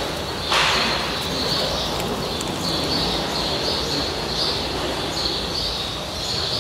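A small bird calling, short high chirps repeated about twice a second over a steady background hiss. A brief rush of noise comes about half a second in.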